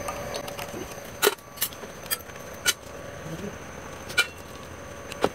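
Sharp metallic clinks from drum brake springs, shoe hardware and a spring tool being worked off a rusty rear brake assembly. About six separate clinks come at uneven intervals, some with a brief metallic ring.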